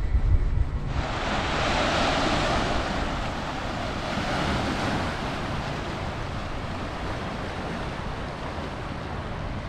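Lake Ontario waves washing onto the shore, a dense rushing that starts abruptly about a second in and swells twice, with wind rumbling on the microphone.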